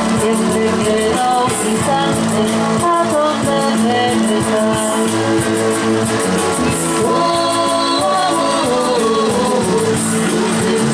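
Rock music: electric guitar and a drum kit keeping a steady beat on the cymbals, with a singing voice over it.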